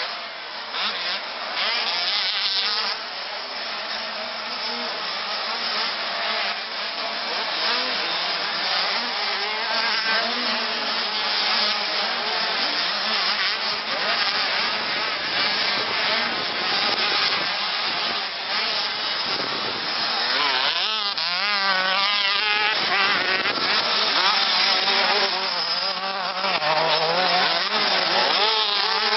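Several two-stroke 85 cc motocross bikes racing, their engines revving up and down with overlapping pitches, with a stretch of fast wavering revs about two-thirds of the way in.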